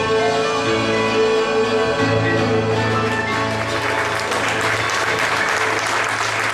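A band of guitars, bass and keyboard holding its final chord as it rings out, then audience applause starting about three seconds in and growing louder.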